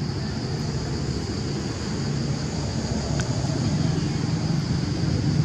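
A steady low engine rumble that grows a little louder toward the end, with a faint steady high-pitched hum above it.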